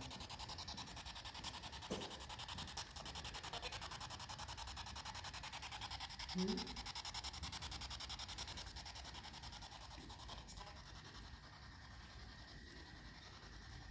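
Spirit box sweeping through radio stations: faint static chopped in a fast, even pulse, several times a second, with a brief rising voice-like fragment about six seconds in.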